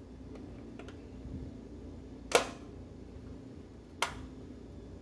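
Two sharp clicks about a second and a half apart from an electric range's surface-burner control switch as its knob is turned.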